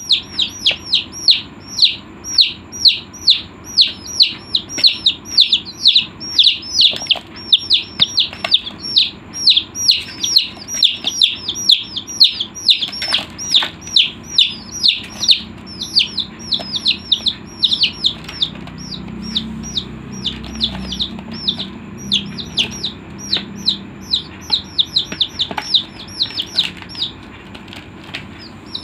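A group of chicks peeping nonstop: loud, high, quickly falling peeps, several a second and often overlapping, thinning out somewhat in the second half.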